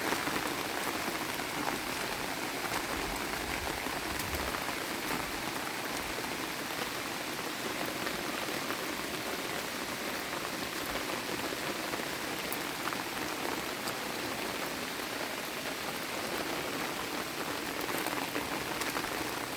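Steady rain falling, an even hiss with faint scattered drop taps.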